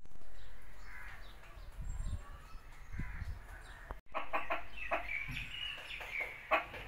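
Country chickens clucking and calling, with a string of short, sharp calls after a brief break about four seconds in.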